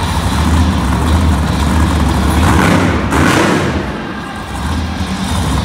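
Monster truck engines idling loudly with a steady low rumble. About halfway through, a brief surge of noise swells and fades.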